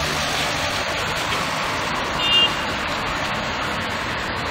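Steady street traffic noise from passing vehicles, with one short high-pitched beep about two seconds in.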